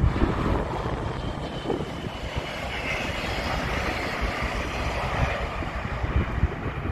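DB Class 146 electric locomotive hauling double-deck regional coaches past at speed: a steady rush of wheels rolling on the rails, with wind buffeting the microphone underneath.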